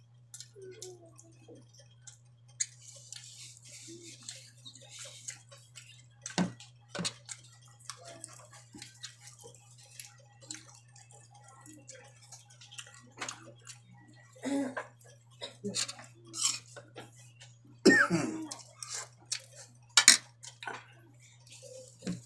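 Eating sounds: chewing and scattered clinks and taps on a plate, with a few louder knocks, over a steady low hum.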